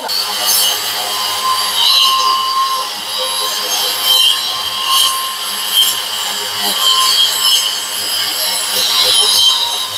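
Brushless Boda wall chaser cutting a groove in a wall: a steady motor whine with the grating of the blade in the masonry, the machine running along without being pressed.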